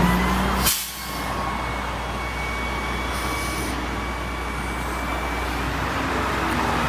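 Steady vehicle and road traffic noise with a low rumble, broken by one sharp click or clunk just under a second in.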